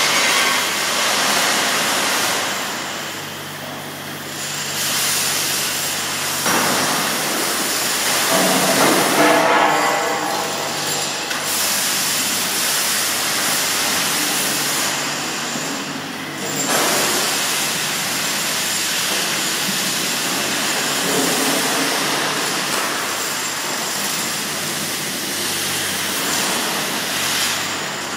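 Oxy-fuel cutting torch burning through steel, a loud steady hissing roar, with the noise growing rougher for a few seconds midway.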